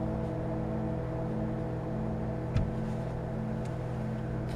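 Steady low machinery hum made of several held tones, with a throb about every two-thirds of a second. A single short knock comes about halfway through.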